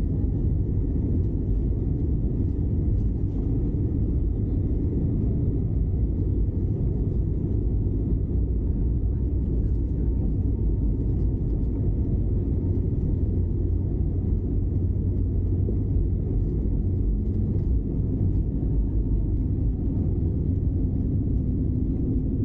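Steady low rumble of a moving car, heard from inside the cabin: road and engine noise at an even level.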